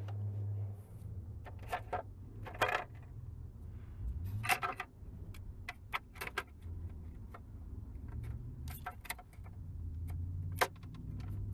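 Small metal parts of a Range Rover's dismantled ignition lock clicking and clinking as they are handled and probed, in irregular separate ticks, over a steady low hum.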